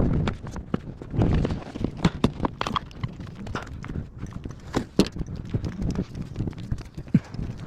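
Irregular hard knocks and clatter at uneven spacing over a low background rumble, the sharpest knocks about 2 s, 5 s and 7 s in.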